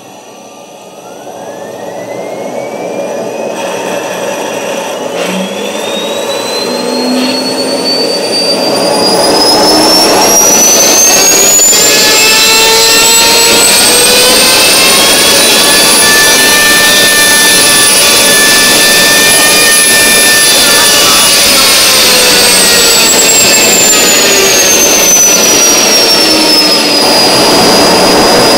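Homemade turbine jet engine spun up by a handheld electric starter motor. A high whine climbs steadily in pitch over about fifteen seconds while a rushing noise grows under it and the whole sound becomes very loud. The whine holds at its top pitch for a few seconds, then falls as the rotor slows.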